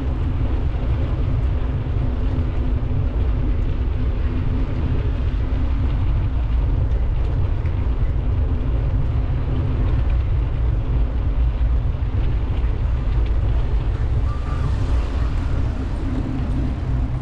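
Steady low rumble of wind and road noise on a camera moving along with a bicycle ride, with a faint steady hum at the start and again near the end.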